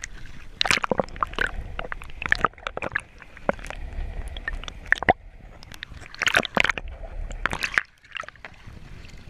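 Sea water sloshing and splashing around a camera dipped in and out of the water beside the boat's hull: irregular sharp splashes over a low rumble.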